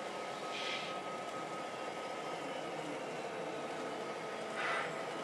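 Model train layout running: a steady mechanical hum with a thin steady tone, and two brief hisses, one about a second in and one near the end.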